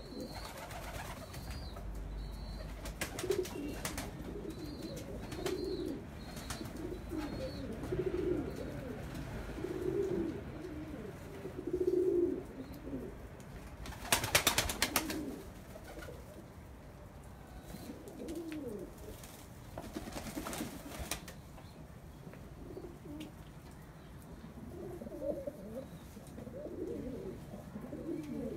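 Domestic pigeons cooing, low coos repeating every couple of seconds, with a short loud rustling burst about halfway through.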